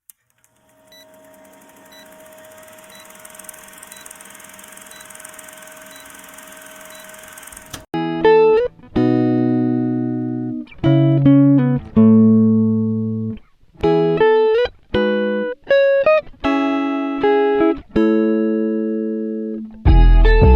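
Background music: a soft, hazy opening with held tones for about eight seconds, then a slow melody of plucked notes that each ring and fade. A low bass comes in near the end.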